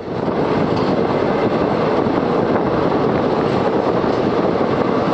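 Steady running noise of the Sewagram Express passenger train on the move: wheels rolling on the rails and rushing air, even and unbroken.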